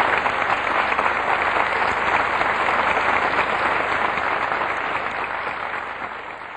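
Theatre audience applauding, a dense steady clatter of clapping that tapers off near the end.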